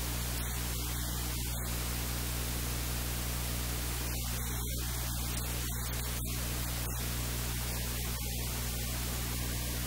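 Steady static hiss with a low electrical hum underneath, unchanging throughout.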